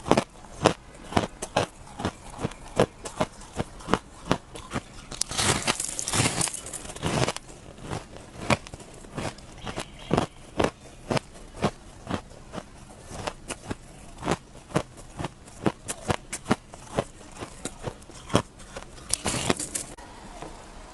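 Powdery shaved ice being bitten and chewed close to the microphone: a quick, uneven run of crisp crunches, about two or three a second. Twice, about five seconds in and near the end, the crunching runs together into a longer, hissier grind.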